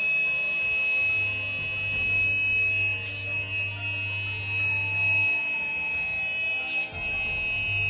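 Cheap 12-volt mini tyre-inflator compressor running, a steady high-pitched buzzing whine over a low hum that drops out briefly past the middle. It is working but puts no air into the tyre.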